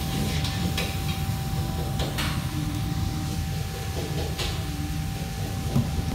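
Steady low mechanical rumble with a constant mid-pitched hum over it, and a few brief hisses.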